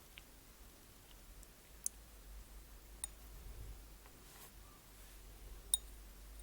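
A few faint, sharp clicks over quiet room tone: one a little after the first second, another about three seconds in, and the loudest near the end.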